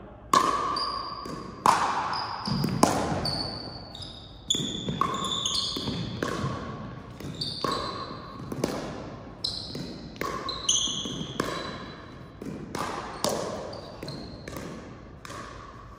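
A ball game in play: a string of sharp ball hits and thuds, roughly one a second, each ringing on briefly, with short high squeaks between them.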